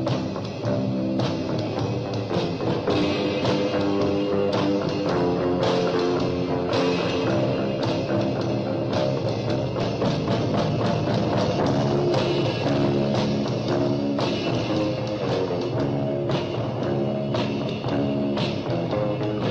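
Instrumental rock-style music with electric guitar over a drum kit keeping a steady beat.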